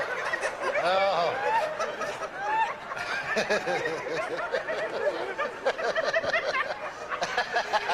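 A congregation laughing and calling out all at once, many voices overlapping in giggles and chuckles with no clear words.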